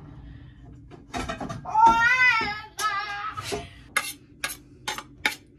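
A voice sings a short wavering phrase of a tune. About four seconds in, a kitchen knife starts chopping on a wooden cutting board in a quick run of sharp taps, about three a second.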